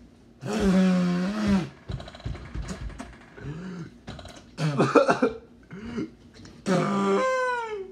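A young man gagging and retching with coughs, in three loud drawn-out heaves, about half a second in, near five seconds and near the end, the last falling in pitch. The disgust reaction to a foul-flavoured Bean Boozled jelly bean, one he identifies as wet dog.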